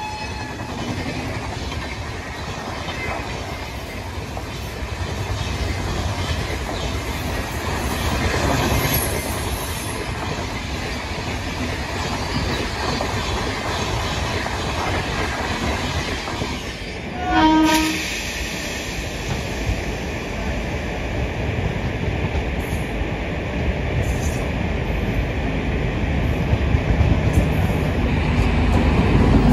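Express passenger train's coaches running through at speed, a steady rumble of wheels on the rails. About 17 seconds in there is one short train-horn blast, then another train's running noise builds toward the end as it approaches.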